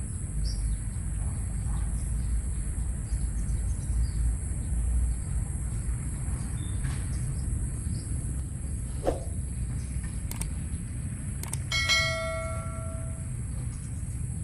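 Forest ambience: a steady high insect drone over a low rumble, with a few faint clicks. About twelve seconds in, a short bright ringing tone lasts a second or so.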